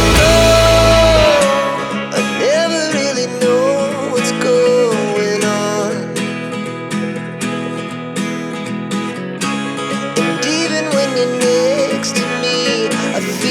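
Background music: a sung melody over acoustic guitar. The bass drops out about a second in and comes back near the end.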